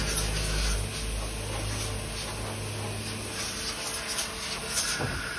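Niigata SPN 40 horizontal machining centre's rotary table turning a tombstone fixture: a low motor hum over a steady hiss, the hum stopping about three and a half seconds in.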